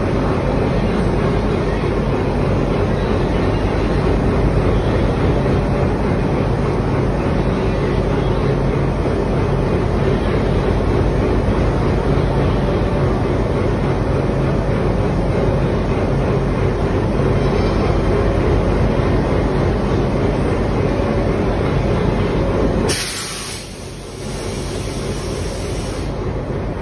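WDG3A diesel locomotive's ALCO 16-cylinder engine idling with a steady, even drone while standing coupled to a coach. About 23 seconds in the engine sound drops abruptly and a thinner, higher hiss takes over.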